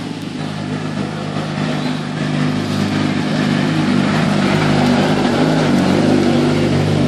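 Engine of a VW Golf hill-climb race car running at low revs as it rolls slowly past close by, a steady rumble growing louder as it comes near.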